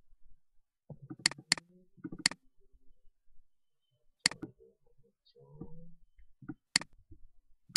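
Computer mouse button clicking: about six sharp single clicks spaced a second or two apart, including a quick double click a little over a second in.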